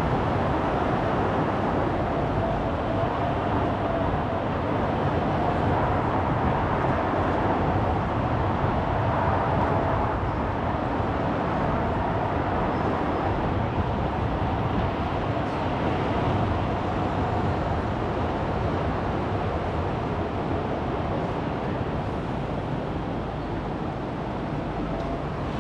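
Steady road noise from a car driving through city traffic: continuous engine and tyre rumble with a faint steady tone.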